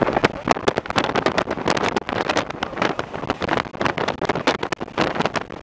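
Wind buffeting the microphone over the road noise of a moving car, a gusty, crackling rush that rises and falls irregularly.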